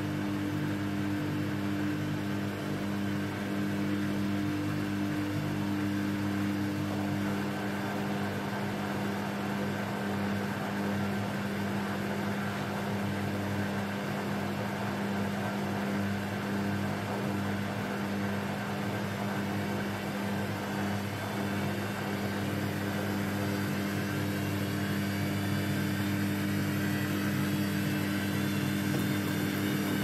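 Samsung Ecobubble front-load washing machine spinning its drum on the spin cycle: a steady motor hum and drum whir. A faint high whine rises slowly in pitch over the last several seconds as the drum speeds up.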